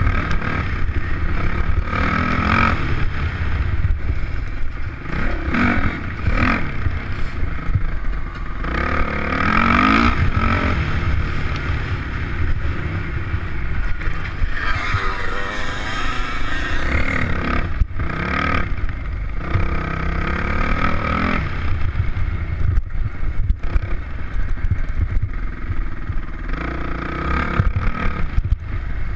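Dirt bike engine running under load over rough ground, its revs rising and falling repeatedly as the throttle is opened and shut, with a heavy low rumble of wind on the microphone and scattered knocks from the bumps.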